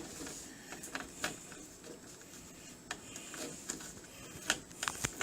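Scattered small clicks and a short stretch of light rattling as a screwdriver works the screws holding a PC motherboard onto its standoffs, with the board and metal case being handled.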